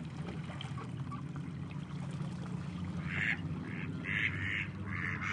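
Mallards quacking: a quick run of short, harsh quacks starting about halfway through, over a steady low hum.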